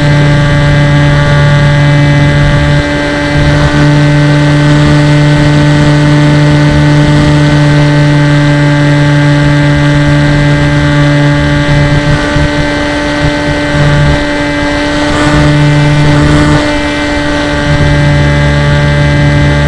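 Motor and propeller of an FPV model aircraft running at a steady pitch, heard from its onboard camera, with a rough rush of air over the microphone underneath; a low part of the hum drops out briefly a few times.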